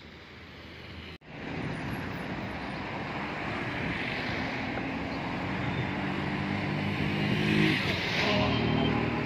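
Town street traffic: cars and motorbikes going past. A vehicle's engine hum grows louder and peaks about eight seconds in as it passes close by.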